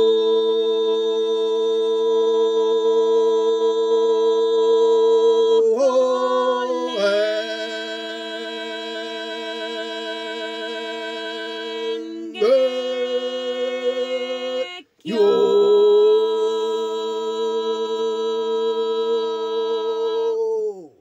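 A voice chanting long, steady sustained tones, each held for several seconds, with short slides in pitch where one tone gives way to the next, about six, twelve and fifteen seconds in, and a brief break for breath near fifteen seconds.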